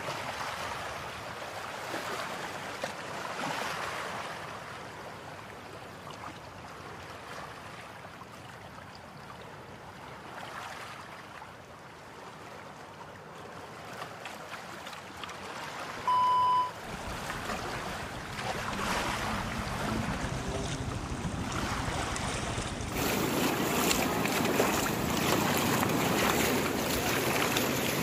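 Floodwater rushing past in a steady wash, with wind on the microphone adding low rumble and growing louder in the second half. A short electronic beep sounds about sixteen seconds in.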